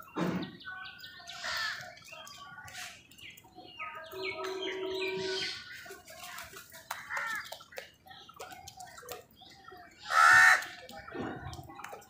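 House crows cawing at intervals while feeding, with one loud caw about ten seconds in. Small clicks and taps between the calls.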